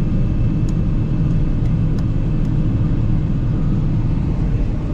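Combine harvester running steadily during corn harvest, a loud, even low rumble, with a few faint light ticks over it.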